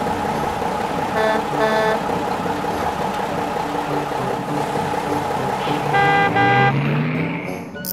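Dubbed-in vehicle engine sound running steadily, with two quick horn toots about a second in and two more about six seconds in; the engine pitch rises near the end.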